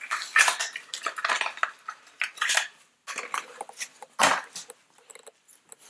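Irregular clicks, light clinks and rustles of a toothpaste tube and a rubber dental toy being handled, with one louder knock about four seconds in.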